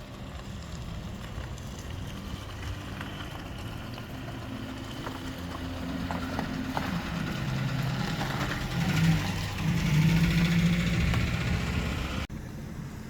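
Motor vehicle engine running, growing louder in the second half as it comes closer, then cut off abruptly shortly before the end.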